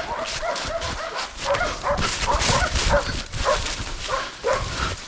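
Hunting dogs yelping in a rapid, uneven string of short calls, a few a second, over a rough rustling background.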